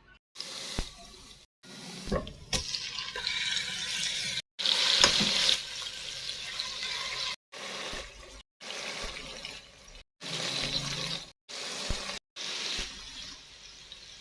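Water running from a tap into a sink, with a few knocks of things being handled. It comes in short stretches, each cut off abruptly.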